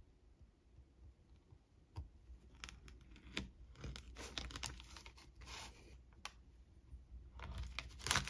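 Kitchen knife cutting through a soft slab of homemade protein bar, the blade scraping on the parchment paper beneath in a series of short scratchy strokes, with a louder cluster near the end.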